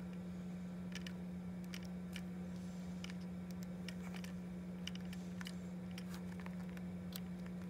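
Scattered light clicks and taps of fingers handling battery wire connectors on an RC car chassis, over a steady low hum.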